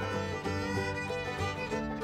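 Background instrumental music: a lively string-instrument tune over a steady beat.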